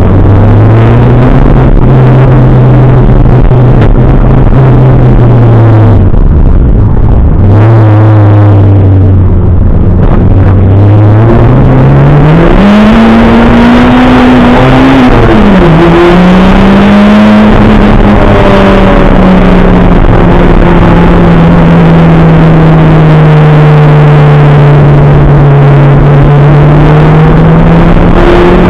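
Toyota Celica GT-Four ST185 rally car's turbocharged 2.0-litre four-cylinder engine, loud from inside the stripped cabin, working through the gears. Its pitch dips about six seconds in, climbs steeply around twelve to fourteen seconds, drops sharply with a gear change about fifteen seconds in, then holds a fairly steady high note, with road and tyre noise under it.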